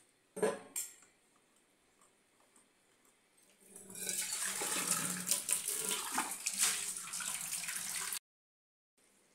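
Two sharp knocks about half a second apart near the start. From about four seconds in, water runs steadily from a tap into a steel tumbler standing in a stainless steel sink, then cuts off suddenly a few seconds later.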